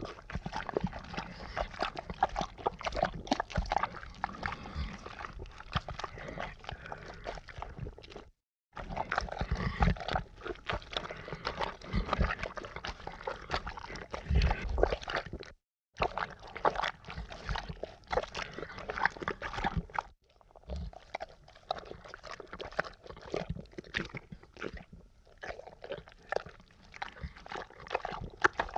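Thick, gooey ooze bubbling, with a dense, irregular stream of wet pops, gurgles and squelches. It cuts twice to brief silence. The last third is thinner and quieter, with fewer, sparser pops.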